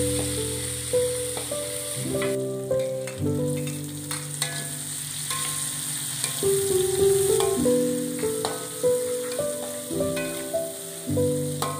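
Food sizzling in a steel wok while a metal spatula scrapes and clinks against the pan in a stir-fry, with sharp taps scattered throughout. A melody of held notes plays over it.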